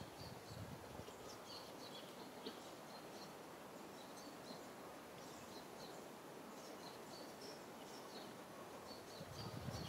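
Faint outdoor ambience: a steady background hiss with short, high chirps from small birds scattered throughout, and a soft low rumble near the end.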